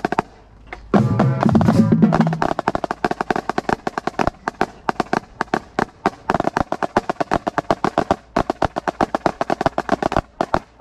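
Marching snare drum played fast in a rudimental parade cadence: dense, rapid strokes and rolls with accents, at about eight to ten strokes a second or more. A brief pitched sound rises over the drumming about a second in.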